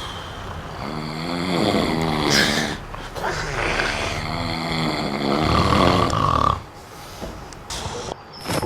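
A person snoring: two long snores, the first about two seconds and the second about three, each with a wavering pitch. After them it goes quieter for the last couple of seconds.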